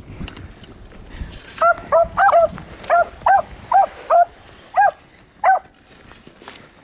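Beagle baying on a rabbit's scent trail: a run of about ten short, sharp yelps over some four seconds, the hound's voice as it runs the track.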